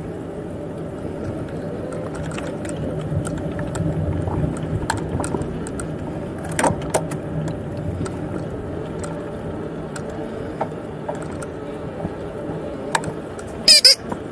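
Bicycle being ridden: scattered clicking and rattling from the chain and freewheel over steady rolling and wind noise. Two short, loud, high-pitched sounds come near the end.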